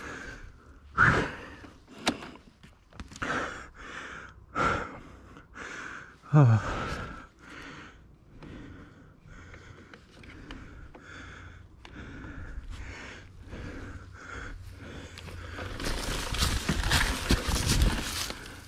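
A man breathing hard, with a series of heavy, noisy breaths about a second apart and a short falling groan about six seconds in: the panting of someone exhausted. Near the end a denser rush of noise rises and falls.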